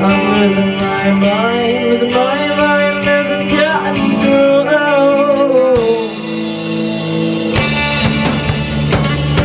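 Rock band playing a song: a voice sings gliding, held notes over guitar and drums until about six seconds in. Then a crash comes in as the band plays fuller, with another crash near the end.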